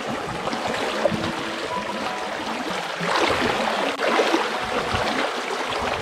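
Shallow stony stream running and splashing, with the water sloshing as someone wades through it; louder for about a second, about three seconds in.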